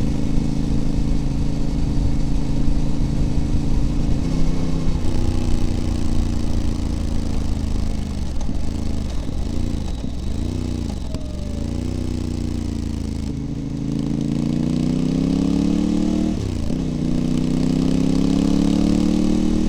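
Voge DS 800 Rally's parallel-twin engine heard through a straight-through Scorpion exhaust with its baffles removed, picked up from under the silencer while riding. The note holds steady, then dips and recovers in pitch several times about eight to twelve seconds in, and climbs steadily as the bike accelerates near the end.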